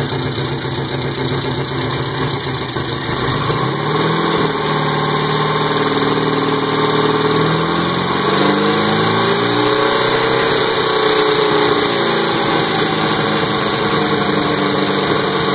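1972 MG Midget's 1275 cc A-series four-cylinder engine idling, then revved by hand at the open carburettor. The pitch rises and falls briefly a few seconds in, then climbs and falls back slowly between about eight and twelve seconds before settling.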